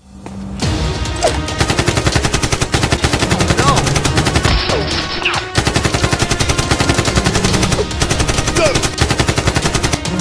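Rapid automatic gunfire sound effects: a dense, unbroken stream of shots with a brief pause about halfway.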